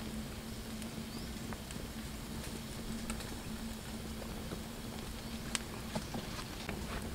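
Small wood campfire crackling, with scattered sharp clicks and pops that come more often in the last couple of seconds, over a faint steady low hum.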